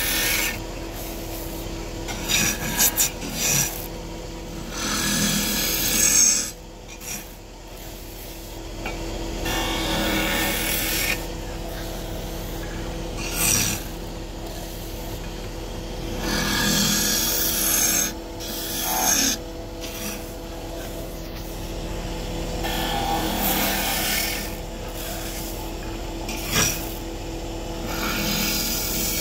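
Wood lathe running with a steady hum while a tool is worked against the spinning wood in repeated passes of a second or two each.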